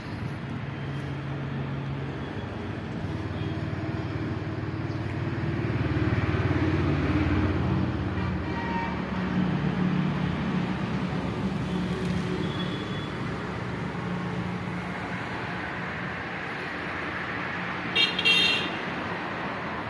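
Road traffic going by: vehicle engines running steadily, louder for a few seconds in the middle as one passes, and a vehicle horn honking twice briefly near the end.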